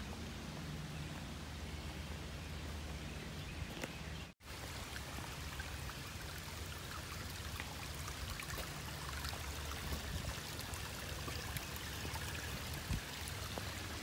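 Shallow rocky creek trickling and splashing in a steady wash, over a low rumble. The sound drops out for an instant about four seconds in.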